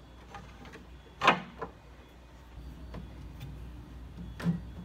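Hard clicks and knocks of 3D-printed plastic kit pieces and a strip of glass being handled and set on an aquarium's rim. One sharp knock comes about a second in, with a fainter tap just after it. A few light taps follow, and there is another knock near the end.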